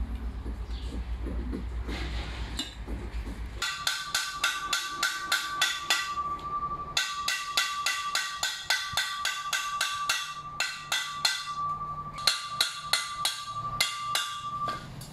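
Hammer striking a steel exhaust pipe in quick, even blows, with a metallic ring that carries between strikes and two short pauses. Before the hammering starts about three and a half seconds in, a low steady rumble runs and then stops.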